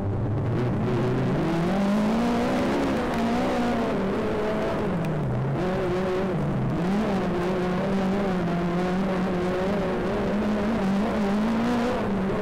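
Speedway race car engine accelerating, its pitch climbing over the first two seconds, then running hard with the pitch dipping and rising again a couple of times as the throttle is eased and reapplied.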